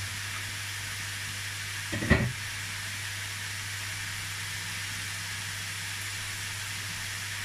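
Diced chicken breast and onion sizzling steadily in a hot non-stick wok, with a steady hiss of steam. One sharp knock about two seconds in.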